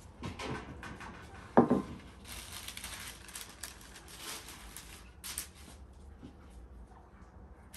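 Sheet of baking paper rustling and crinkling as it is handled and laid over a metal baking tray, with one sharp thump about a second and a half in.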